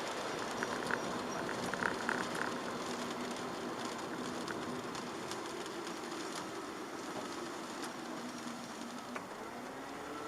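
Steady hiss of tyres on a wet road and rain on the car, heard from inside the cabin of a Chevrolet Aveo, under the low hum of its 1.4 petrol engine. A short run of light clicks comes about two seconds in.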